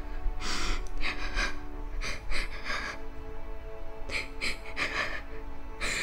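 A girl breathing in quick, gasping breaths, over a steady low drone of background music.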